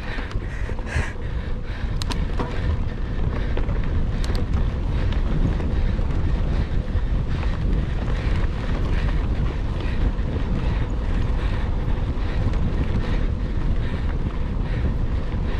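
Wind buffeting the microphone of a mountain bike rider's camera at speed, over a steady rumble and rattle of the bike on the trail, with a couple of sharp clicks about two and four seconds in.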